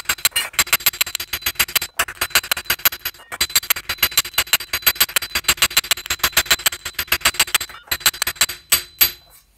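Steel planishing hammer striking a dished steel knee cop held on a ball stake, in a rapid, even stream of light blows with a steady metallic ring, planishing out the dents left by forming. The run breaks briefly a few times and stops shortly before the end.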